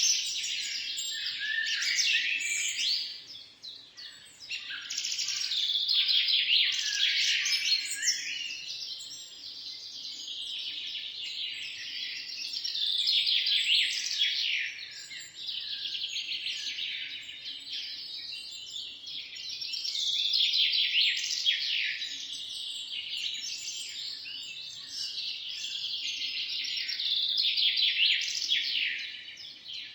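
A chorus of many small birds chirping and twittering at once, with rapid high chirps and trills overlapping. The chorus thins briefly about three seconds in, then fills again.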